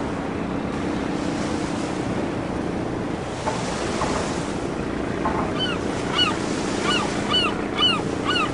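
Seaside ambience of surf washing, with gulls giving short, arched cries about twice a second from about five seconds in.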